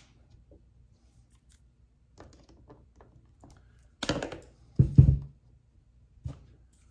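Clicks and knocks of small hand tools and the plastic Optispark distributor housing being handled on a towel-covered bench, with a louder clatter about four seconds in and a low thump just after it.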